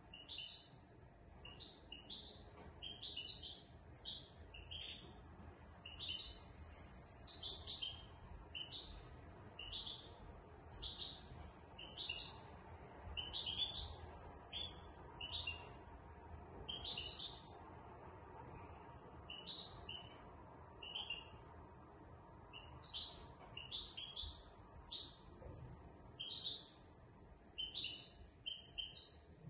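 Caged European goldfinch of the large 'major' race singing: short bursts of quick, high chirping notes, phrase after phrase with brief pauses between them.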